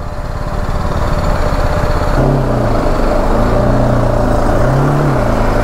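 BMW G 310 GS single-cylinder engine running while riding, under heavy low rumble and wind noise. About two seconds in, a humming engine note comes up and its pitch wavers up and down with the throttle.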